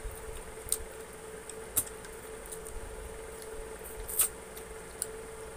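Close-up eating sounds of two people chewing spicy fried chicken wings by hand: small wet mouth smacks and crackly clicks, a few of them sharp, the loudest about four seconds in, over a steady faint hum.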